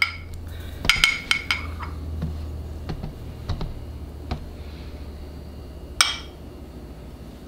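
Small glass prep bowls clinking against each other a few times as a spice mix is tipped from one to the other. There is a cluster of ringing clinks about a second in and a single sharp one near the end, over a low steady hum.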